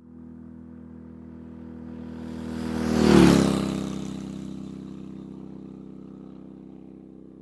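A motor vehicle passing at a steady engine speed: its engine note swells to its loudest about three seconds in, dips in pitch as it goes by, then slowly fades away.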